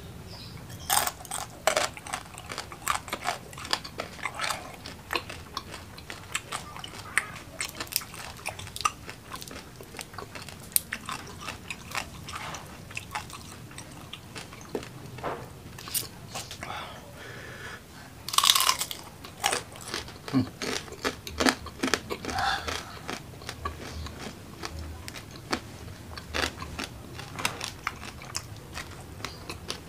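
Close-miked eating of fried kembung mackerel and rice by hand: biting and chewing with many small crunches and clicks. There is a louder burst about two-thirds of the way through.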